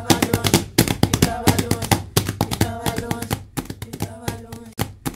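Batuku: a group of women beating a fast, dense rhythm on tchabeta, rolled cloth pads held on the lap and slapped with the hands, with women's voices singing over it. The music gets quieter in the last seconds, then cuts off suddenly near the end.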